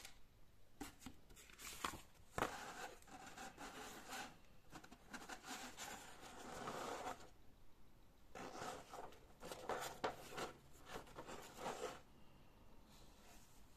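Rustling and crinkling of paper as a model-kit instruction booklet is handled and its pages are turned, in irregular spells with a few light clicks.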